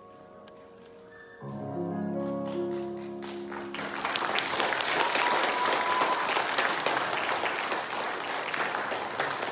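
The last sustained chords of the song's accompaniment. From about four seconds in, an audience applauds.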